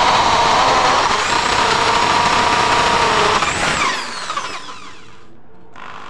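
AEG SB 500 RE electric impact drill boring a 25 mm wood auger bit into a softwood board, the motor running loaded and steady. After about four seconds the trigger is let off and the motor spins down; it starts again quietly near the end.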